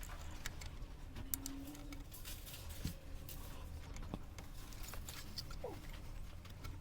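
Small scattered clicks and scratches of hands and tools handling capacitors and a circuit board, over a steady low hum, with a short falling squeak near the end.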